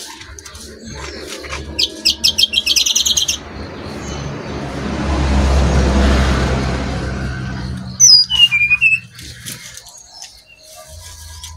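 Brown-chested jungle flycatcher (sikatan rimba dada coklat) singing: a quick run of repeated high notes about two seconds in, then a falling whistled phrase about eight seconds in. A rush of noise swells and fades between them.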